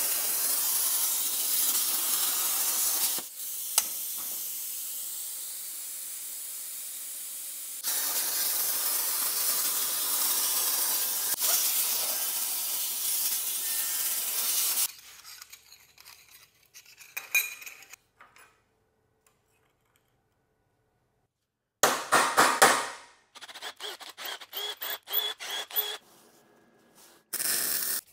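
Arcdroid CNC plasma cutter's torch cutting steel plate: a loud steady hiss that drops to a quieter hiss for a few seconds, then comes back, and stops about halfway through. Later come a few loud short bursts, a run of rapid clicks, and near the end a short spray-can hiss.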